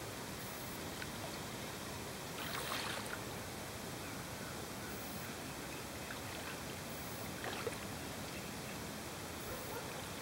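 Steady hiss of open-air water ambience on a lake, with a short splash of water about two and a half seconds in and a single light knock a few seconds later.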